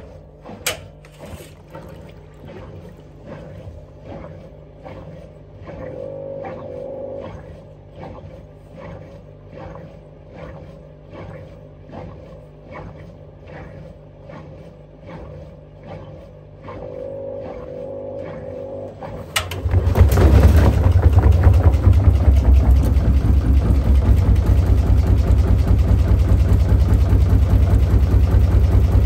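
Hotpoint Ariston Aqualtis washer-dryer drum turning slowly, with a rhythmic knock about one and a half times a second and a brief motor whine twice. About two-thirds through it abruptly becomes much louder as the drum spins up with a heavy half-wet hoodie inside: a strong low hum with fast rapid pulsing.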